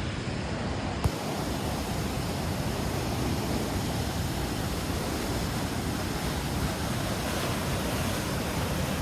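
Floodwater rushing down a swollen creek: a steady, even roar of moving water, with one sharp click about a second in.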